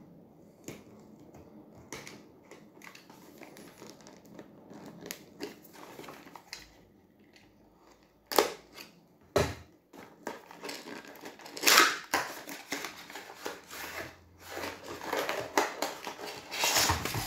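Utility knife blade cutting through the seal stickers of a small cardboard CPU retail box. Faint scratching at first, then a few sharp clicks and scrapes, loudest about halfway. Near the end comes cardboard rustling and crinkling as the box flaps are pulled open.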